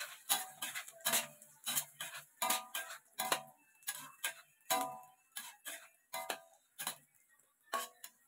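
Metal spatula knocking and scraping against a stainless steel wok while stir-frying sliced chilies: sharp clanks about twice a second, irregular, some leaving a brief metallic ring, thinning out near the end.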